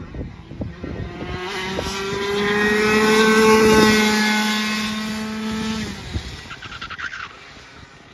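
Two-stroke racing kart engine at high revs passing by, rising to a peak about halfway through and then fading as the kart pulls away.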